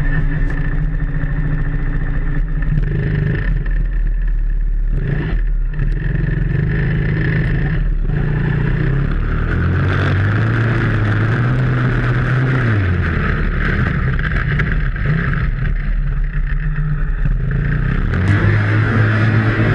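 Small engine of a kids' four-wheeler ATV running, first at a steady idle with a few clicks and knocks. It then revs up as the ATV pulls away about ten seconds in, drops back a few seconds later, and revs up again near the end.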